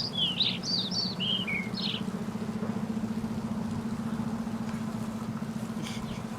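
A bird chirping, a quick run of short sliding notes for about the first two seconds, over a steady low hum like an idling engine.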